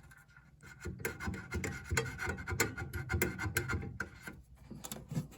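A toothpick scraping and poking to clean out a small furnace part: a run of irregular small scratches and clicks.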